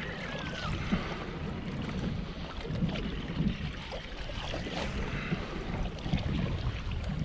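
Wind buffeting the microphone in irregular low gusts over the sound of small waves lapping against a fishing boat's hull.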